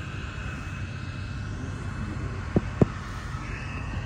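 A steady low rumble with two short, dull thumps in quick succession a little past halfway, the second the louder.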